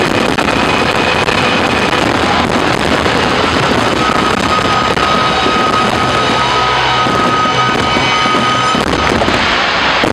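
Fireworks finale: a dense, unbroken barrage of shell bursts and crackling, with music underneath and a held steady tone through the middle.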